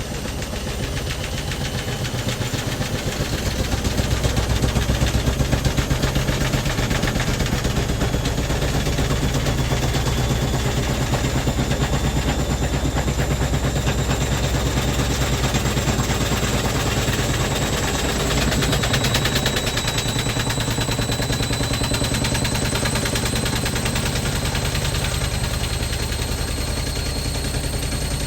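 Hoover DynamicNext DXC58W3 washing machine spinning hard, its motor whine rising slowly in pitch under a fast, continuous rattling and knocking as the machine shakes and walks across the floor. The loudness builds over the first few seconds, then holds.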